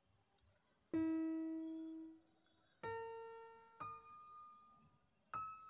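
Background music: four slow single notes, each struck and left to fade, the first low and the other three higher.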